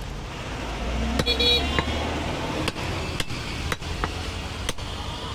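Heavy butcher's cleaver chopping goat meat on a wooden log block: a string of sharp, separate knocks. A low traffic rumble runs underneath, and a vehicle horn toots briefly about a second in, the loudest sound here.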